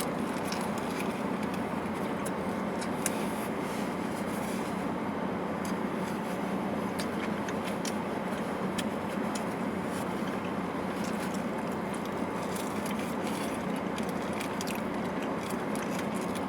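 Steady background noise with many small scattered clicks and crackles throughout.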